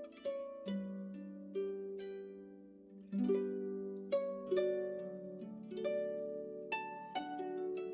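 Background music: a slow tune of plucked notes, each ringing and fading, over held low notes.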